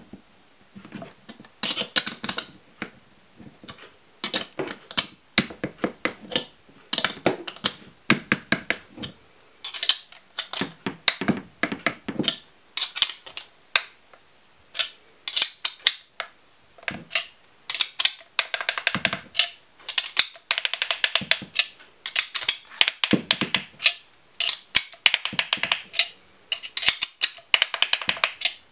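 Sharp metal clicks and clinks, in irregular runs of several a second, from two 30 mm wrenches turning the M8 screw and nut of a bearing puller. This is the puller working a Shimano bearing out of a press-fit bottom bracket's plastic shell.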